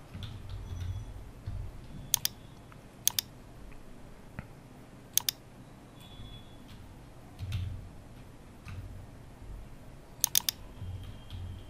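Computer keyboard typing and clicks while code is being edited: a few separate sharp key or mouse clicks, then a quick run of three near the end.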